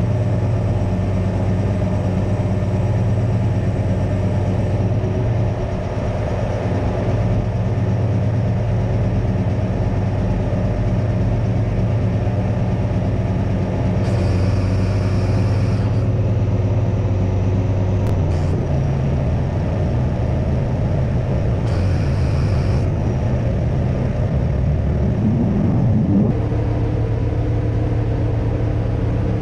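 Crane truck's engine running steadily to power the Fassi knuckleboom crane's hydraulics during a lift. Its note shifts about two-thirds of the way through, then rises and settles higher near the end. Two brief hisses come in between.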